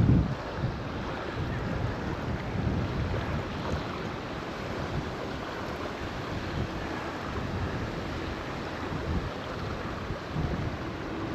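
Strong wind buffeting the microphone: a steady rushing, with heavier low gusts at the start and again near the end.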